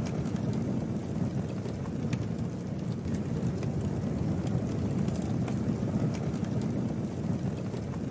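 Campfire burning steadily, with a low rumble of flame and scattered sharp crackles and pops from the burning wood.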